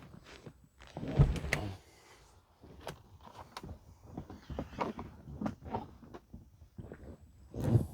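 Plastic interior trim in a pickup cab being pried loose and handled: a string of knocks, clicks and scrapes, with a heavy thump about a second in and another near the end.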